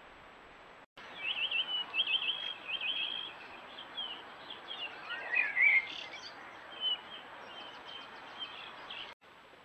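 Wild birds singing in woodland: repeated trilling phrases, then a mix of warbled notes from more than one bird, the loudest around the middle, over a steady hiss. The sound starts abruptly about a second in and cuts off abruptly near the end.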